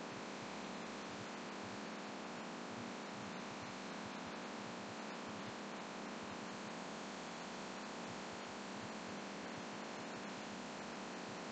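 Laminar flow hood blower running, a steady rush of filtered air with a low hum under it.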